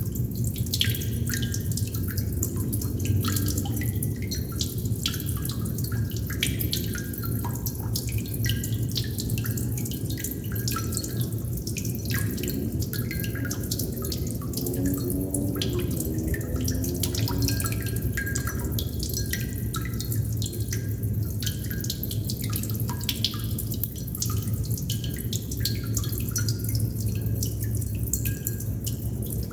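Water droplets dripping steadily and irregularly, many quick drops a second with small ringing plinks, over a constant low background hum.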